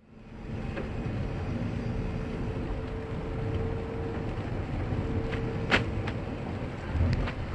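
A car on the move: a steady low engine and road rumble with a faint hum, fading in at the start, with a few small clicks and one sharper click a little after halfway.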